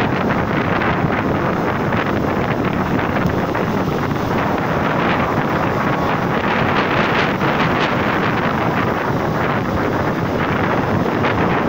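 Wind blowing on the microphone over the steady wash of ocean surf breaking on the beach.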